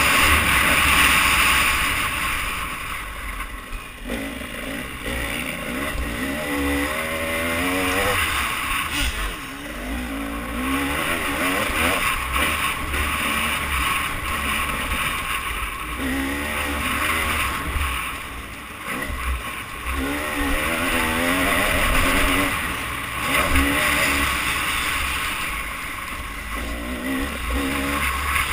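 Motocross bike engine revving hard as it is ridden round a dirt track, its pitch climbing again and again as the rider accelerates and shifts through the gears, heard from the rider's helmet camera with a constant rush of wind and engine noise.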